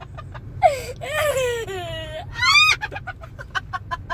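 Sulphur-crested cockatoo mimicking a child's laugh, together with the child laughing: a long falling cry, a short rising-and-falling cry, then a quick run of 'ha-ha' pulses, about five a second, near the end.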